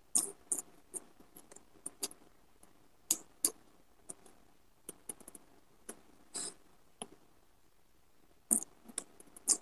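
Close-up eating sounds: irregular wet mouth clicks and lip smacks while chewing fried fish, with a short hissy sound about two-thirds of the way through and a cluster of louder smacks near the end.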